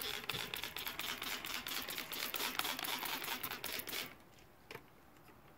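Hand trigger spray bottle squeezed over and over, spraying liquid rust remover in quick clicky hisses, stopping about four seconds in; one more short click follows.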